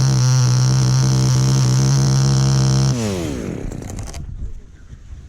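Chainsaw held at high revs, then the throttle is released about three seconds in and the engine winds down, its pitch falling away.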